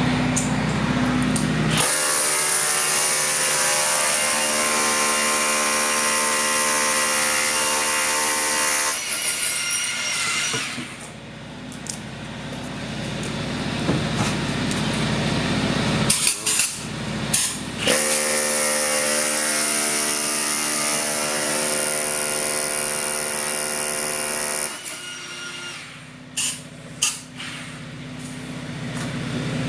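Power drill running in two long bursts of about seven seconds each, about two seconds in and again about eighteen seconds in, most likely boring injection holes in the concrete slab for the foam. A few sharp clicks fall between and after the bursts, and an engine idles underneath.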